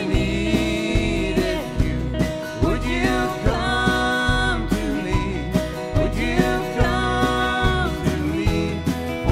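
Live country band playing an instrumental break: strummed acoustic guitars, bass and drums under a pedal steel guitar lead that slides between long held notes.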